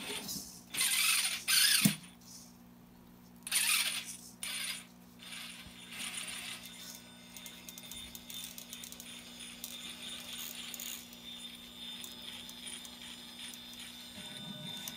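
Electric RC rock crawler's drivetrain and gears whirring in two short bursts, then faint fast mechanical ticking over a steady low hum.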